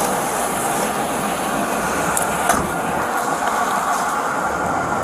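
Steady rushing outdoor noise on a body-worn camera's microphone, with one sharp click about two and a half seconds in.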